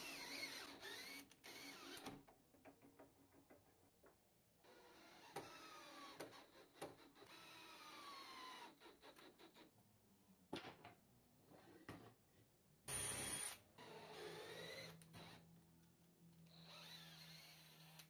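Electric drill run in about six short bursts, its whine sliding up and down in pitch as the load on it changes.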